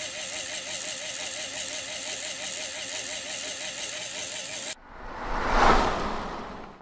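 Homemade RC differential axle turned through its drive shaft by a small electric motor: a steady whir of motor and gears whose pitch wavers regularly. It cuts off abruptly about five seconds in and gives way to a whoosh that swells and fades.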